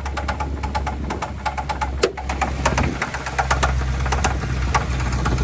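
Jeep's Hemi V8 running with a rapid, irregular ticking and knocking over its steady hum, which the owner assumes is a worn-out camshaft; the engine is losing power.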